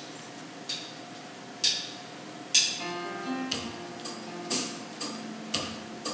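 Three sharp percussive clicks about a second apart count in a song. About three seconds in, an instrumental intro starts: sustained pitched notes over a light percussion beat of about two strikes a second.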